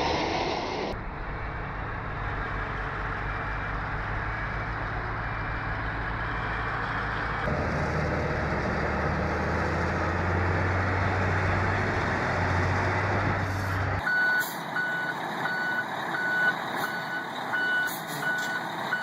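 A heavy vehicle's engine running steadily under load, its note shifting up about halfway through. It then gives way abruptly to a reversing alarm beeping about twice a second over a vehicle engine.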